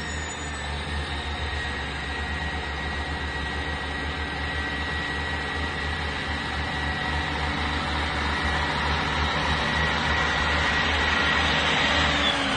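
Class 158 diesel multiple unit pulling away, its underfloor diesel engines running with a low throb and a steady high whine, slowly growing louder. Near the end the whine drops in pitch.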